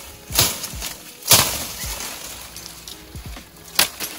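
Leafy branches being snapped and torn off a bush: three sharp cracks, the loudest about a second in and followed by a short rustle of leaves. Faint background music underneath.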